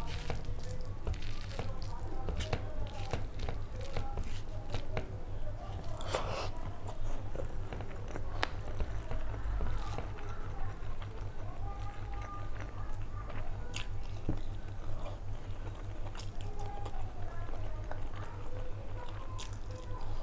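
Close-up eating sounds of a person eating curry and rice by hand: fingers squishing and mixing the rice and gravy, then chewing with wet mouth clicks and lip smacks, over a steady low hum.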